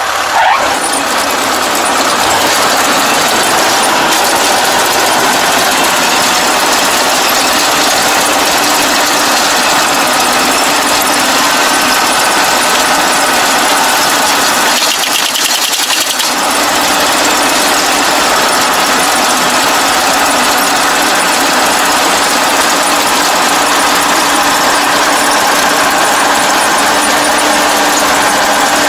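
ANR460 combine harvester running steadily with its reaper and feed mechanism engaged, trying to feed through rice straw that has jammed the header from badly lodged rice. The sound dips briefly a little past halfway, then carries on.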